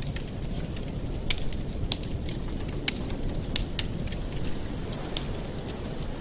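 Campfire burning: a steady low rumble of flames with irregular sharp crackles and pops from the burning wood.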